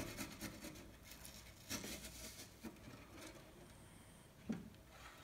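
Quiet scraping, rustling and light clicks from a stainless box grater and grated onion being handled on a ceramic plate, with one soft knock about four and a half seconds in.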